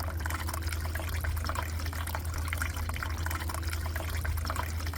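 Water trickling and splashing steadily in a small homemade tabletop fountain, over a steady low hum.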